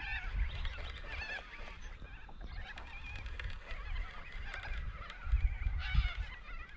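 Birds calling repeatedly in wavering, honk-like calls over a low rumble, with a couple of louder low thumps about five and six seconds in.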